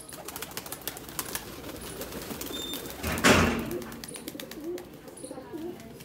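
Domestic pigeons cooing, with scattered light clicks and a brief loud burst of noise about halfway through.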